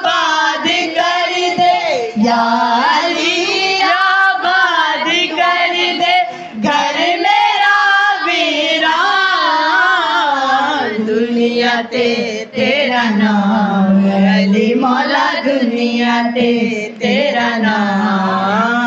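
Manqabat, a Shia devotional song, sung: a voice carries long, winding melodic lines without clear words between verses of the refrain.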